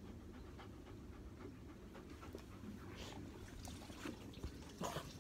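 A shaggy dog panting close to the microphone, with scattered scuffs and rubbing as its fur and body press against the phone.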